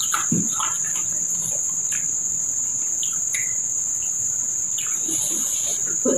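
A steady high-pitched insect trill, like crickets, runs without a break. Over it come soft, scattered smacks and clicks of fingers picking rice and fried chicken off a banana leaf, and of chewing.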